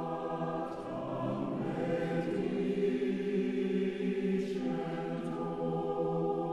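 Background music: a choir singing slow, long-held chords that change twice.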